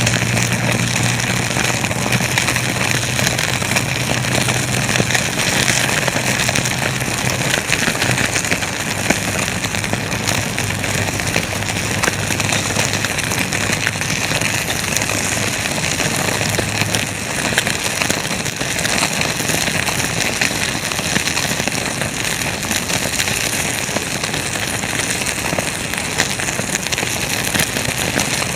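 Wood fire crackling, with many sharp snaps and pops over a steady hiss.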